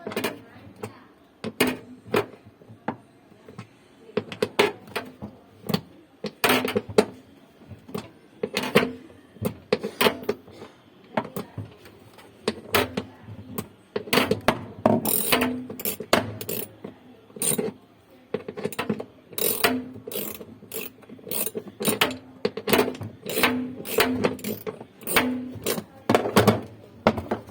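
Irregular clicks, knocks and clatter of hand tools and parts on a washing machine being taken apart, some in quick runs, over a faint steady hum.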